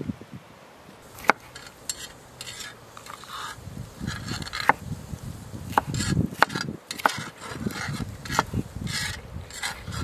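Chef's knife slicing a red bell pepper on a wooden cutting board: crisp cuts through the flesh with several sharp, irregular knocks of the blade on the board.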